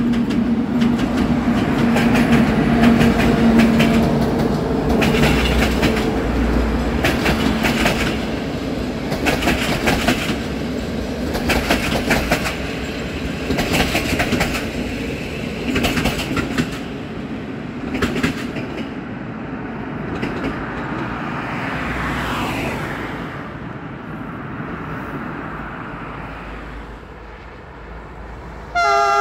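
A train hauled by an LE 060 EA electric locomotive rolls past, its wheels clicking over rail joints in regular groups with a steady low hum at first; the sound gradually fades. Just before the end, a train horn sounds a brief, loud multi-tone blast.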